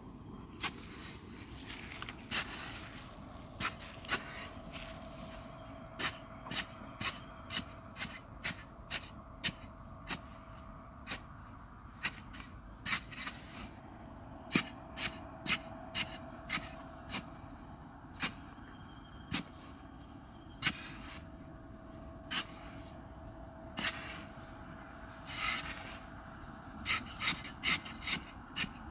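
Hand work on wood: irregular sharp knocks and clicks, several a second at times, with some scraping and rubbing.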